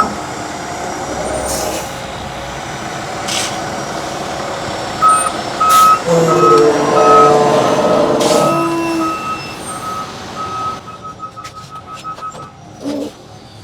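A truck's backup alarm beeps steadily, about two beeps a second, starting about five seconds in over the truck's running engine. A few sharp knocks come through now and then.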